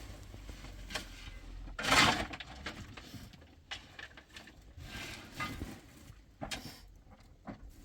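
Hard objects clinking and knocking at irregular moments, with one louder clatter about two seconds in.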